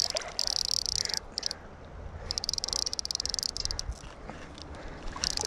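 Fly reel's click drag buzzing in bursts and ratcheting in rapid clicks as a hooked fish pulls line off and line is reeled back in. River water rushes low underneath.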